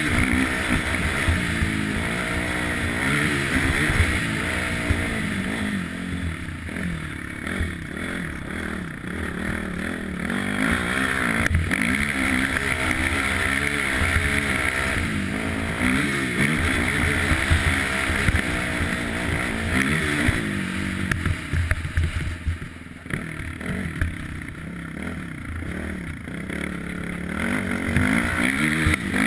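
ATV (quad) engine running under way over a snowy track, its pitch climbing and falling as the rider speeds up and eases off. It drops back to a quieter run twice, for several seconds each time, about a quarter of the way in and again about three quarters of the way in.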